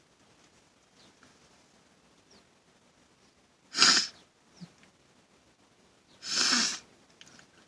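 A man sneezing once, sudden and loud, about four seconds in after a quiet stretch: a sneeze set off by pepper snorted up his nose. A second, longer but softer burst of breath follows about two seconds later.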